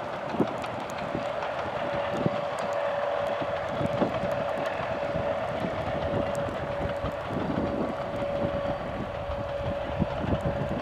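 A narrow-gauge train hauled by a diesel locomotive, running at a distance with a steady hum. Wind buffets the microphone with repeated low thumps.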